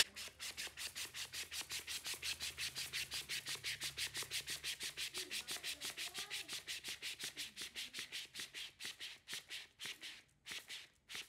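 Lid of a Fellow Atmos vacuum coffee canister being twisted back and forth by hand to pump the air out: a quick, even run of short rasping strokes, about five a second, that slows and breaks off near the end as the vacuum is reached.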